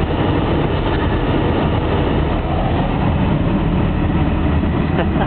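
Steady low noise inside a car's cabin while driving, with a faint click about five seconds in.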